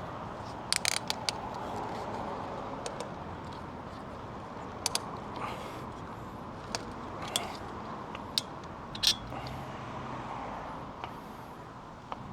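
Scattered metallic clicks and clanks of a bicycle being clamped onto a car-mounted bike rack, with a quick cluster of clicks about a second in, over steady background noise.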